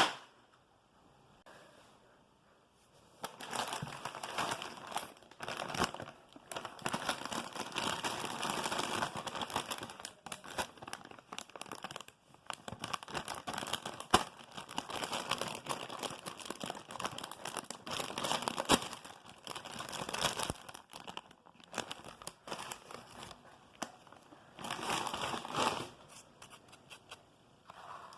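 A Lay's crisp bag crinkling as it is handled and torn open, starting about three seconds in and going on in long bursts with short pauses, with a lull, then one more burst near the end.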